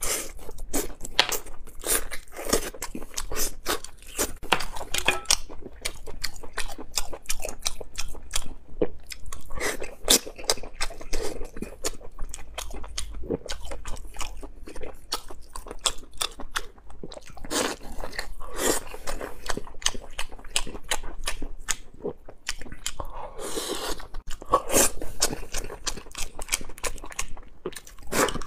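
Close-miked chewing of braised beef: a man biting and chewing meat with wet, crunchy mouth sounds in irregular bursts.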